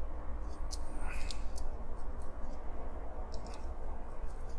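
Small screwdriver backing screws out of a diecast model car's metal chassis: a few light clicks and ticks, grouped around one second in and again just past three seconds.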